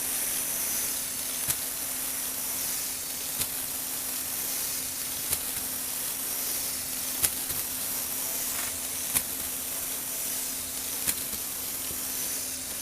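Small electric motor and gearbox in a Lego Technic mechanism running steadily with a hum and hiss, with a sharp click repeating about every two seconds as the mechanism cycles.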